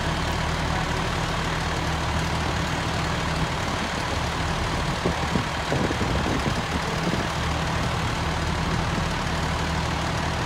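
Aerial ladder fire truck's diesel engine idling steadily, with a few light knocks about halfway through.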